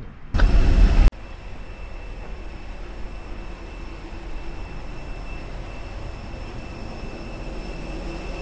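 A loud, brief rush of noise near the start. It gives way to a steady mechanical drone with a thin, high, level whine: the running equipment of a parked airliner heard from the jet bridge.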